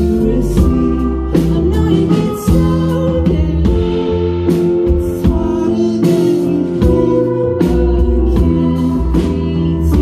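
Rock band playing live: a steady drum beat, electric bass and guitars, with singing.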